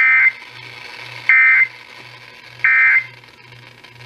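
Emergency Alert System end-of-message signal: three short bursts of the SAME digital data tone, a warbling two-tone signal near 1.5 and 2 kHz, about a second and a third apart. It marks the end of the broadcast alert.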